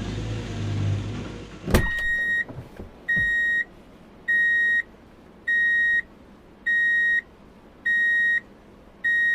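A heavy diesel engine running, cut off sharply with a click under two seconds in. Then an electronic beeper sounds steadily, one half-second beep about every 1.2 seconds.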